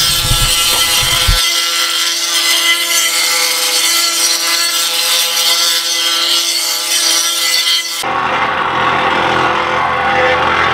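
Gas-engine plate compactor running over a freshly laid and sanded paver patio: a loud, steady engine-driven rattle as the vibrating plate settles the pavers into the base. The sound changes abruptly twice, about a second and a half in and again near the end.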